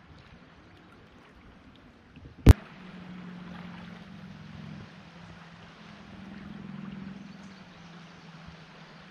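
Creek water running and gurgling, with one sharp knock about two and a half seconds in, the loudest sound.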